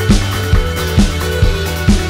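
Background music with a steady beat, about two drum hits a second over a sustained low bass.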